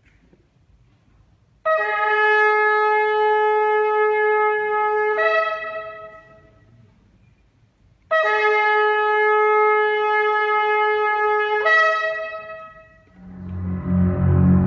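Long curved shofar sounding two long blasts. Each is a held note of about three and a half seconds that leaps up to a higher note just before it ends. Near the end a deep, loud rumbling swell begins.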